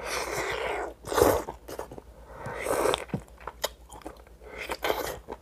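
Close-up eating sounds: a man biting and chewing mussel meat straight from the shell, with wet mouth noises in short spells and a few small clicks.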